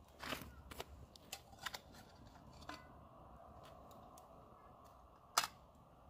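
Cutlery clicking and scraping against a plate several times, then one loud sharp click about five and a half seconds in.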